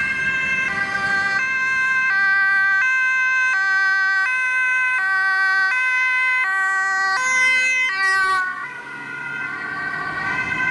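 Ambulance two-tone siren alternating between a high and a low tone about every 0.7 seconds, the Dutch emergency signal of an ambulance running with urgency. About eight seconds in the sound shifts and dips, and the siren carries on more faintly over road noise.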